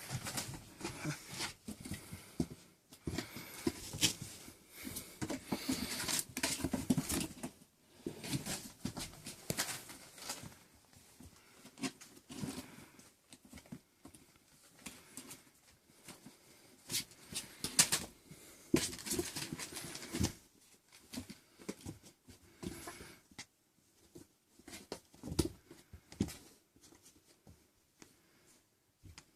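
Six-week-old kittens playing: irregular scuffling, paw patter and small thumps, busiest in the first eight seconds and again around eighteen seconds in, sparser near the end.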